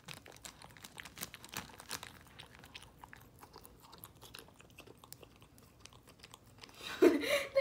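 Shih Tzu licking and chewing sticky peanut butter, its mouth smacking in a run of small irregular clicks. About seven seconds in, a person's voice breaks in loudly.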